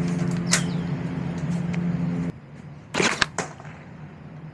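Foam dart blaster firing: two sharp shots in quick succession about three seconds in, after a single sharper crack near the start. A steady humming drone runs underneath and stops abruptly a little past two seconds.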